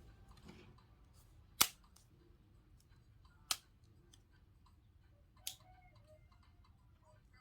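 Three sharp plastic clicks about two seconds apart, the first loudest, with faint small ticks between: a smartphone's parts being squeezed and snapped into place during reassembly.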